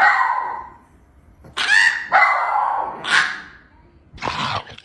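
A dog giving several odd, drawn-out barks, one after another, some with a rising and falling pitch.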